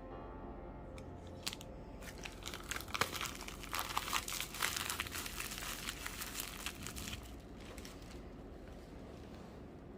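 Packaging crinkling and rustling as it is handled and unwrapped. There is a dense run of crackles from about two seconds in, which dies down after about seven seconds.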